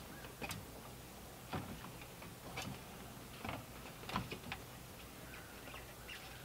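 Faint, irregular light knocks and clicks, roughly one a second with a quick cluster of three about four seconds in: the ladder and log rafters being knocked as a man moves and works on the ladder.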